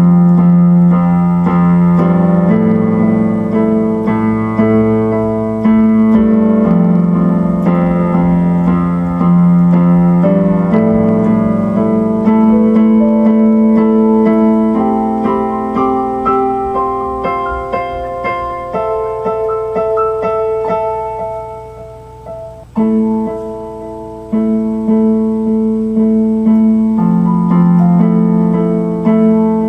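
Instrumental music played on an electric keyboard: chords struck one after another, each fading as it holds, with a brief lull about two-thirds of the way through.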